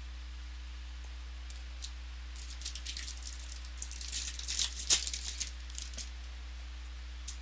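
Trading cards and their packaging being handled: a run of short crisp rustles and clicks, loudest about five seconds in, over a steady low electrical hum.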